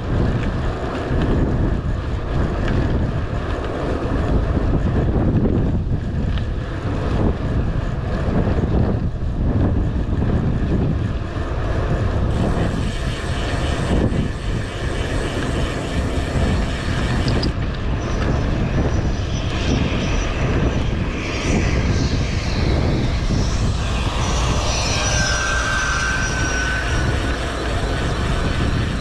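Wind buffeting the microphone of a camera on a moving bicycle, a steady low rumble mixed with tyre noise on the road. A couple of brief thin high tones come in near the end.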